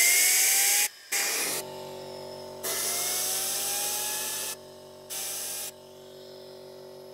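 Compressed-air blow gun blowing into the intake of a homemade Kamps gas turbine in four hissing blasts, the third the longest. During the blasts the rotor's whine rises in pitch as the air spins it, typical of cooling the engine by blowing air through it after shutdown.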